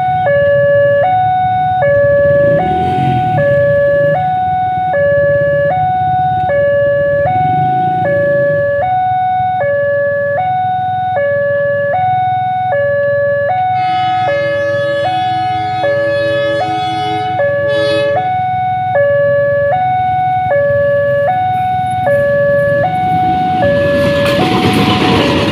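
Railway level-crossing warning alarm sounding a two-tone electronic ding-dong, switching between a higher and a lower tone about every half second. About 14 seconds in, a locomotive horn sounds for roughly four seconds. Near the end, the rumble of the approaching diesel train builds under the alarm.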